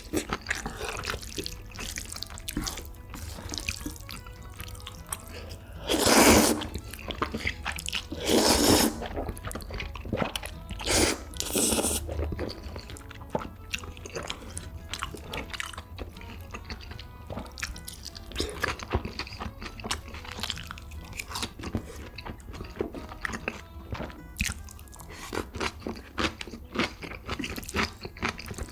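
Close-miked eating sounds of jjajangmyeon: wet chewing and crunchy bites throughout, with four louder noodle slurps about a third of the way in.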